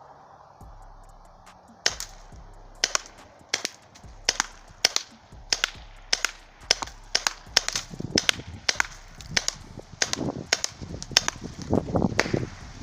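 A .68-calibre airgun fired in quick succession through a chronograph: about seventeen sharp shots, one every half-second or so, starting about two seconds in.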